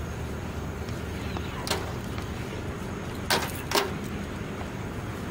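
Cloth and hand working over a car's hood and windshield, giving three brief scuffs, two of them close together past the middle, over a steady low background rumble.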